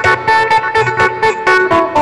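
Isan phin (northeastern Thai plucked lute) played in a fast run of picked notes, several a second.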